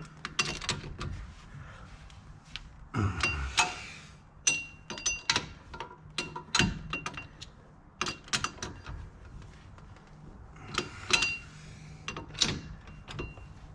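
Scattered metallic clinks, taps and knocks of hand tools and parts being handled while a car's rear wheel hub assembly is put back together, some strikes ringing briefly, over a faint low hum.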